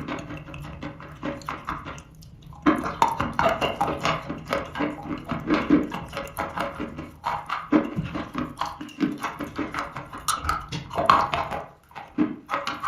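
Close-up crunching and chewing of dry chalk: dense crackly bites and grinding, with a brief pause about two seconds in.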